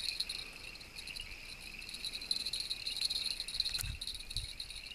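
Steady night chorus of crickets, a continuous high chirring in several pitches, with a couple of soft low thuds about four seconds in.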